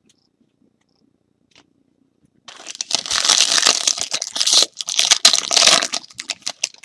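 A foil trading-card pack wrapper being torn open and crinkled by hand. A dense crackling rustle starts about two and a half seconds in and lasts roughly four seconds.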